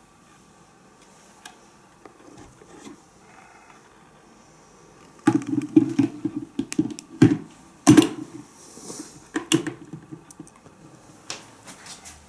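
Handling clatter of the Braun JB 3060 blender's glass jug being set on its base and the plastic lid fitted: a quick run of irregular knocks and sharp clicks starting about five seconds in. The motor is not running.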